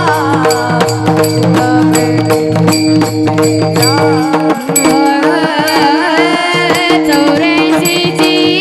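Marathi Varkari bhajan music: a steady drone under a wavering melody line, with drum and small cymbal strokes keeping a quick, even beat. The deep low notes drop out about halfway through.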